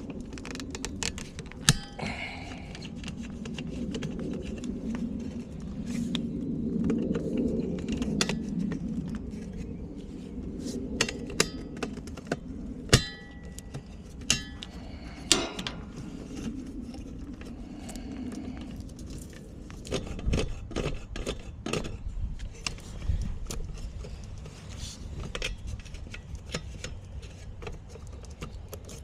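Hand tools and metal parts clinking and tapping during furnace work: many sharp clicks and small metallic knocks, a few with a brief ring, over a low steady rumble.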